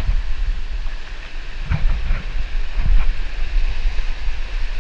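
Waves surging and washing over a rock ledge, under a low rumble of wind on a cased action-camera microphone, which makes the whole sound muffled.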